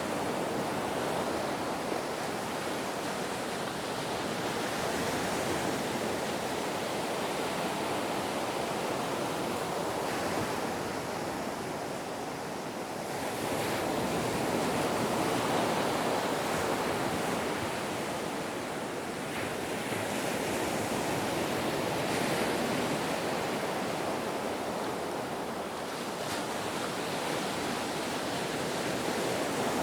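Ocean waves washing on the shore: a continuous rushing surf that swells and eases slowly, rising to its fullest about halfway through.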